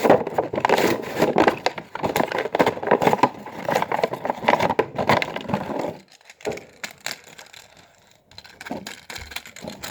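Toy packaging being torn open: cardboard and plastic crackling, snapping and ripping in a dense run for about six seconds, then a few scattered clicks.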